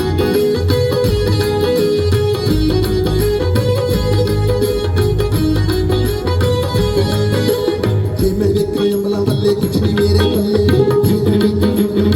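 Live Punjabi folk band playing an instrumental passage: drums keep a steady rhythm under held melody notes, with no singing.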